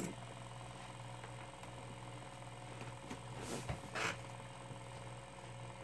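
Two fidget spinners spinning freely side by side: a faint, steady whir from their ball bearings, one of which makes a little noise while the other is quieter. Two brief soft noises come near the middle.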